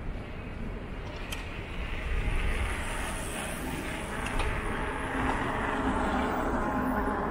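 City street traffic: a steady low rumble of road noise with a vehicle passing by. It grows louder about two seconds in and stays up.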